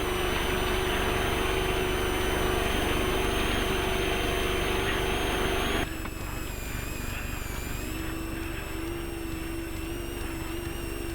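Off-road race truck's engine running at a steady pitch, with loud road and tire noise. About six seconds in, the sound drops suddenly to a quieter, steadier engine note.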